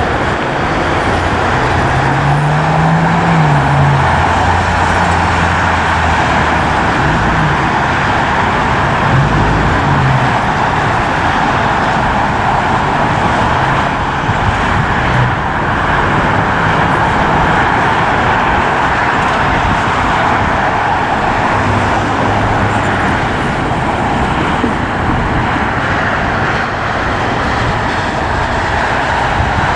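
Steady, loud roar of traffic around a busy airport, jet engines and road vehicles together, with a low engine note briefly rising and falling a few seconds in.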